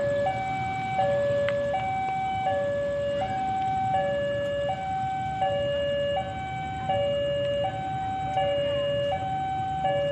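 Electronic two-tone warning alarm, alternating evenly between a high and a low tone about every three-quarters of a second, steady in pitch and loudness: a railway crossing warning signal sounding for an approaching train. A low rumble runs underneath.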